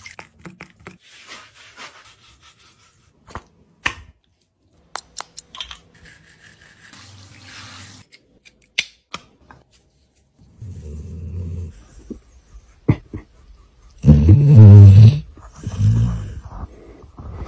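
A dog snoring heavily in its sleep, with low snores in the second half, the loudest about three seconds before the end. Before that, faint water from a hand shower rinsing a dog in a bathtub.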